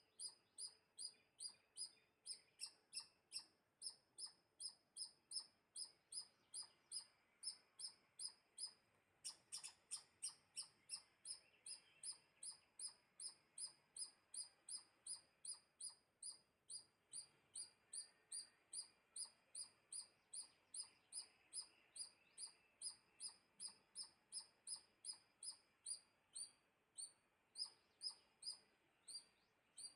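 A squirrel calling: short, high, sharp chirps repeated steadily about twice a second.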